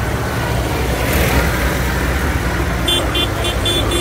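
Old diesel tractors driving past close by, a David Brown first and then a blue tractor, their engines running with a steady low sound. About three seconds in, a string of short high-pitched beeps starts over the engines.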